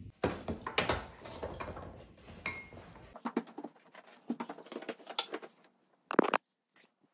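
Kitchen handling sounds: utensils and dishes clinking and knocking irregularly, with one sharp knock about six seconds in.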